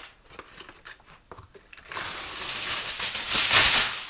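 Heavy-duty aluminium foil being pulled off its roll, crinkling and rustling, with light handling clicks first and the rustle loudest about three and a half seconds in.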